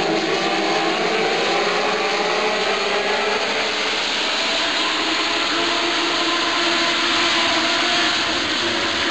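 A pack of INEX Legend race cars running at speed, their Yamaha motorcycle engines blending into a steady drone with several engine pitches gliding up and down as the cars pass.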